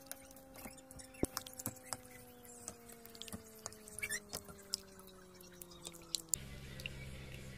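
Wooden spoon stirring thick sauce in a stainless steel pot: soft wet scraping with irregular light clicks and taps against the pot. Under it is a faint steady hum that slowly drops in pitch, and a lower hum takes its place about six seconds in.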